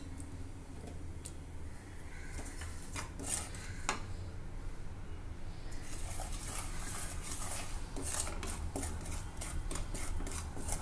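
Wooden spatula stirring and scraping against a metal kadai: a few scattered clicks at first, then a denser scratchy clatter from about halfway through as the stirring gets going.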